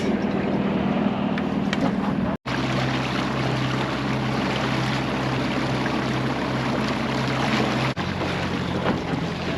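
Boat's outboard motor running steadily at trolling speed, with wind and water noise. The hum drops out briefly about two and a half seconds in and again about eight seconds in, and its pitch is lower between the two breaks.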